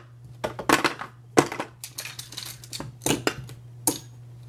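Makeup containers and tools being handled: a string of irregular light clicks and taps, over a faint steady hum.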